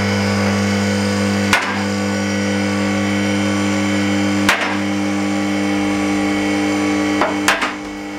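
Outro music: a sustained low synth drone chord punctuated by sharp hits about every three seconds, with a quick double hit near the end as it starts to fade.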